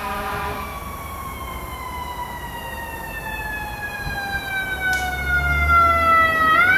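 Fire siren wailing, its pitch sliding slowly down and then rising again near the end. A brief low rumble comes in about five seconds in.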